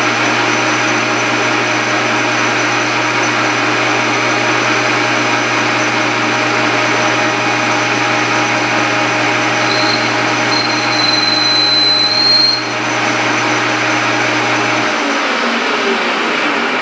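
Small metal lathe running, turning a 1018 mild steel rod with a steady motor hum. About ten seconds in, a high whine joins it for a couple of seconds as the tool takes a 20-thousandths cut that throws blue chips. Near the end the motor is switched off and the spindle winds down, falling in pitch.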